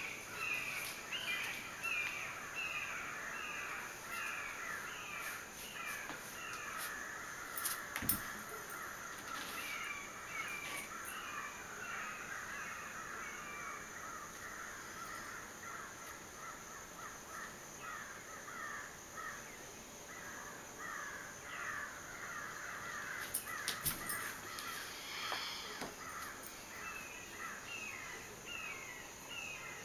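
Birds calling in the surrounding trees: one bird repeats a short call about twice a second over a busy chatter of other birds. A brief knock about eight seconds in and a few clicks later on.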